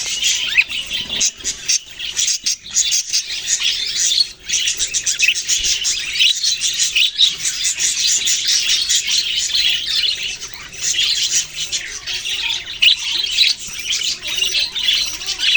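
Budgerigars chirping and chattering in a dense, continuous stream of overlapping short calls.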